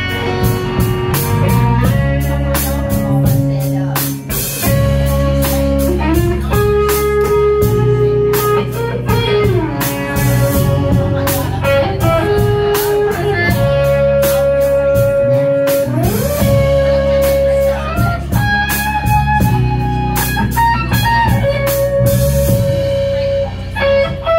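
Live rock band playing an instrumental stretch: electric guitar holding long notes that bend up and down, over a Ludwig drum kit beat and low bass notes.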